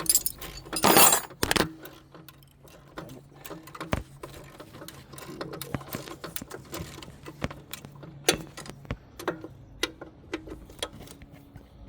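Metal hand tools clinking and clicking while someone works on a car engine, with scattered sharp clicks and knocks and a loud metallic clatter about a second in.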